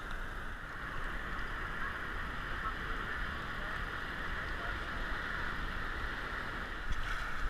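Steady rush of breaking surf and choppy water washing around a camera held at the waterline.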